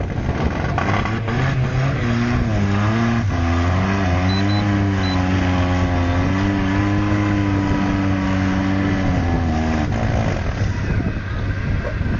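Suzuki SJ 4x4's engine revving under load as the stuck jeep climbs out of a muddy gully under tow. The pitch climbs in steps over the first few seconds, holds high and steady, then falls away about ten seconds in.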